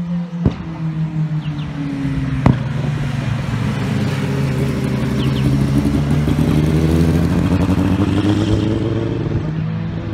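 Road-racing motorcycles running hard on a street circuit, their engine notes rising and falling as they accelerate and pass, swelling to a peak past the halfway point and easing near the end. Two sharp knocks in the first few seconds.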